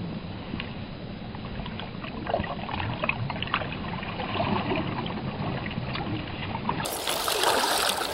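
Trout-stream water sloshing and splashing, with scattered small knocks and clicks. About seven seconds in the water sound turns brighter and more hissing.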